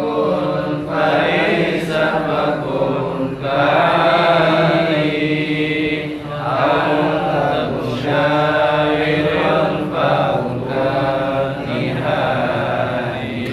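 A man chanting Arabic text in a melodic, sung recitation: long drawn-out phrases with brief pauses between them.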